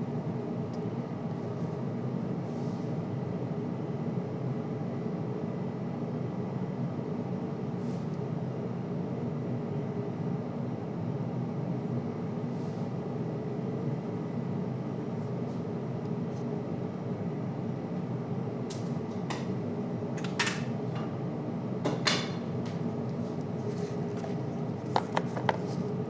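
Steady hum of a kitchen fan, with a few sharp clicks and knocks of plastic food containers and utensils in the last several seconds. The last clicks come as a lid is pressed onto a plastic container.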